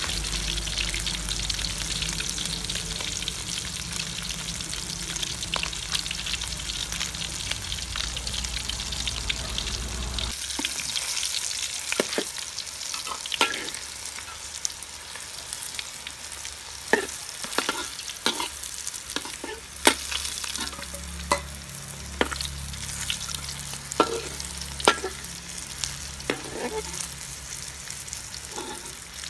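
Fish deep-frying in a steel wok of hot oil, a dense steady sizzle. About ten seconds in the sizzle drops to a quieter level, and a metal ladle scrapes and knocks against the wok a dozen or so times as the fish are stirred and turned.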